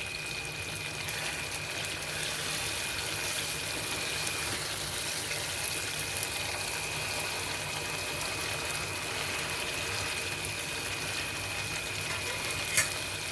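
Prawns and green chillies sizzling in oil in a pan as a steady hiss, with a single sharp click near the end.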